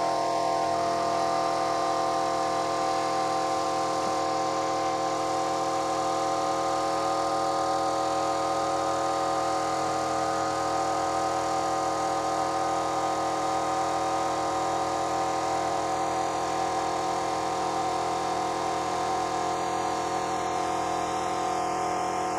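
Kraftdekker KD-50L 50-litre air compressor running steadily, filling its tank: an even motor hum with several held tones.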